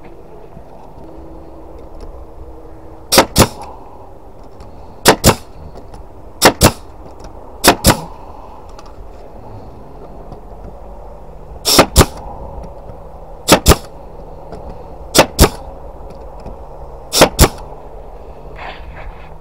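Pneumatic brad nailer firing brads into pine boards eight times, each shot a quick double crack, about every one and a half to two seconds with a longer pause in the middle.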